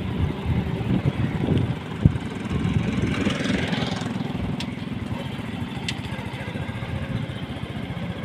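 Motorcycle engine running at low speed under the rider, a steady low putter of firing pulses, with a brief rush of noise about three seconds in.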